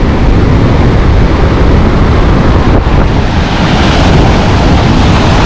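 Strong wind buffeting the microphone over the rush of storm surf breaking on the shore. The hiss of the surf swells louder about three and a half seconds in.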